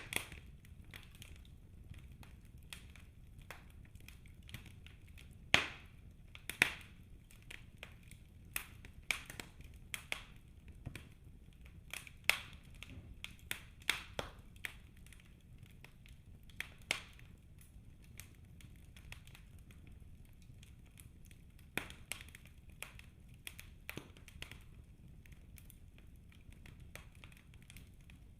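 Wood fire burning in a fireplace: irregular crackles and sharp pops of burning logs over a faint low rumble of the flames, with a few louder pops and a quieter spell in the middle.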